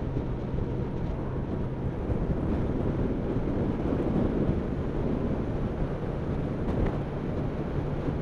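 Motorcycle cruising at about 55 mph: wind rush over the microphone with a steady engine drone underneath. The engine note rises slightly near the end as the bike picks up speed.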